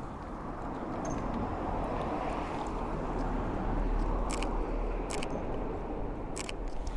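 Street traffic noise at a residential crossing, swelling to a peak about four seconds in and then easing off, with a few sharp clicks in the second half.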